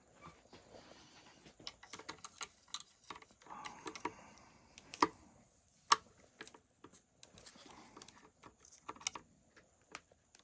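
Irregular small clicks and taps of a hand tool working at a stuck bolt in a plastic RC truck chassis, with two sharper clicks about five and six seconds in.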